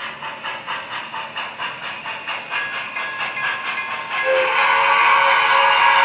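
MTH 4-6-4 J-1e Hudson model locomotive's Proto-Sound 3.0 system playing steam chuffing, about three to four chuffs a second with hiss. About four seconds in, a louder held steam whistle of several tones sounds over the chuff.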